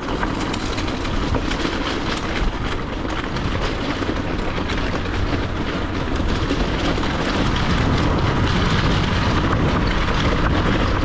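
Riding noise from a Talaria Sting electric dirt bike ridden off-road: a steady rush of wind and tyre noise with many small knocks and rattles. It grows a little louder about halfway through.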